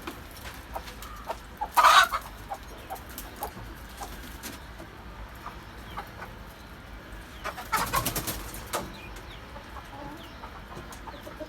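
Domestic chickens clucking, with many short calls and two louder bursts, about two seconds in and again around eight seconds.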